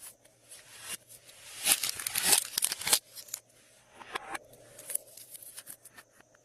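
Glossy slime being worked by hand, giving sticky clicking and crackling, densest and loudest in a burst about two seconds in, then scattered clicks.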